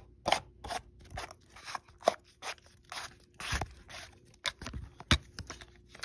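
Hand-handling of a push-button spincast fishing reel: an irregular string of clicks, scrapes and rustles, a few a second, as the reel is worked and twisted in the hand.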